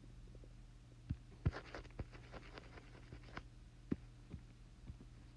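Faint taps and light knocks on an iPad's glass screen as the eraser tool is picked and used, a few scattered clicks over a steady low hum.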